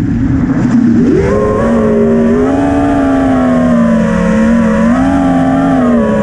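FPV freestyle quadcopter's brushless motors and propellers whining, heard from the onboard camera. The pitch climbs sharply about a second in, then wavers up and down with the throttle, over a steady rush of wind noise.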